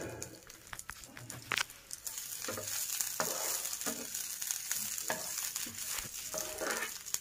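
Cumin seeds, grated ginger and chopped garlic sizzling in ghee in a nonstick frying pan, the sizzle growing stronger about two seconds in. A spatula stirs and scrapes them against the pan in short strokes about once a second.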